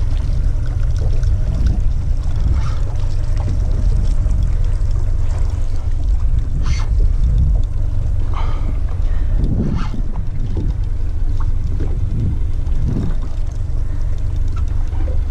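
Wind buffeting the microphone of a body-worn action camera: a steady low rumble, with a few faint clicks and knocks.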